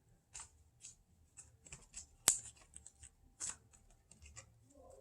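Trading cards being handled: faint scattered rustles and light clicks of cardboard cards sliding and tapping, with one sharper click a little over two seconds in.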